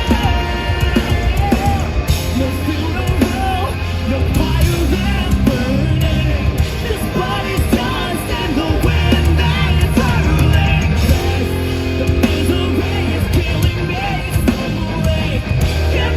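Live progressive metal band playing loud, with a heavy bass and drum low end and a singer's voice over the band.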